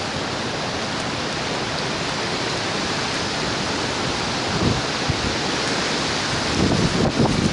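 Hurricane wind and driving rain making a steady, heavy hiss. Wind buffets the microphone in low rumbling gusts about two-thirds of the way through, growing stronger near the end.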